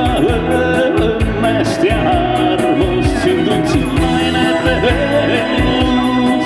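Live amplified music through PA speakers: a man singing over acoustic guitar and keyboard with a steady beat.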